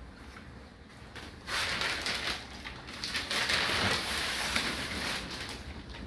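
Water spraying and splashing inside a Whirlpool WFO3P33DLXUK dishwasher at the start of its wash, a hissing, crackling spatter that gets much louder about a second and a half in and dies down again near the end.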